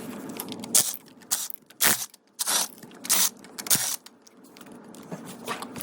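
Metal go-kart parts and hand tools clinking and scraping while the kart is stripped down: about six sharp clinks and short scrapes over three seconds, then a quieter stretch.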